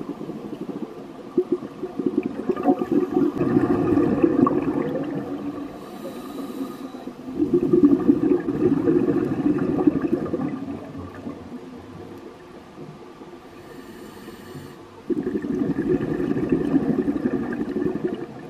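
Scuba diver breathing through a regulator underwater: three long bubbling exhalations spaced several seconds apart. Before the second and third exhalations comes a short hiss of inhalation through the regulator.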